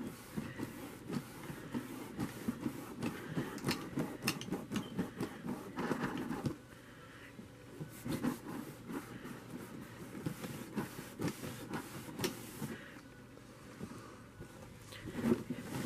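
A cloth towel scrubbed rapidly back and forth on a painted chalkboard frame to rub off a spot of stray paint with nail polish remover. The rubbing strokes are dense for the first six seconds or so, stop briefly, then resume and thin out near the end.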